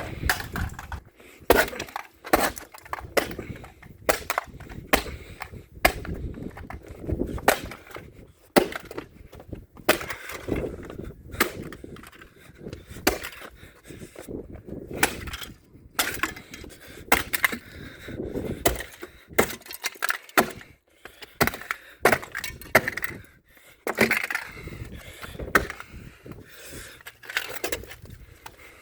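Something being smashed apart: many hard blows in irregular succession, about one or two a second, with breaking and cracking.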